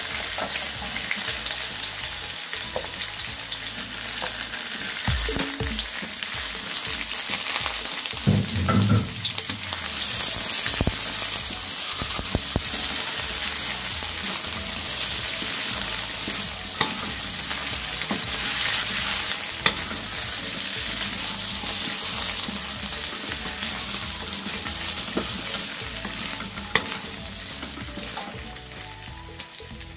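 Diced potatoes frying in a little oil with chopped shallots and garlic in a steel wok, sizzling steadily while a wooden spatula stirs and scrapes against the pan. There are a few heavier knocks of the spatula about a quarter of the way in.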